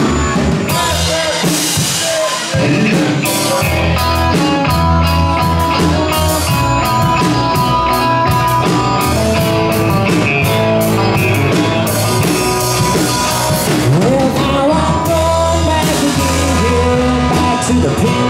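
Live rock band playing with electric guitars, bass guitar and drum kit, the band getting fuller and louder about two and a half seconds in.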